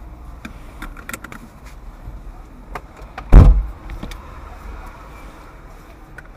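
A few light clicks and knocks, then one loud thump about three seconds in, typical of a car door being shut, over a low steady rumble.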